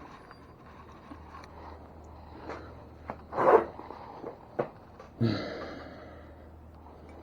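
Metal tools and bike parts being handled: scattered light clicks and scrapes, then a sharp metallic clank about five seconds in that rings on briefly and fades.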